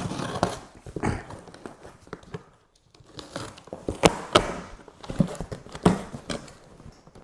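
A cardboard box being opened and its contents handled: rustling with a string of irregular knocks and taps, the loudest about four seconds in.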